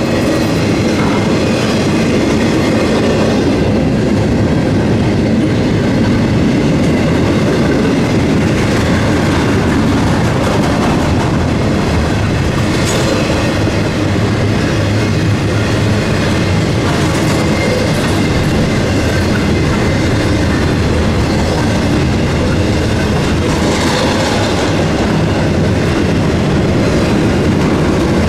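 Norfolk Southern intermodal freight train rolling past close by: a steady, loud rumble and clatter of steel wheels on rail, with a few sharper clacks.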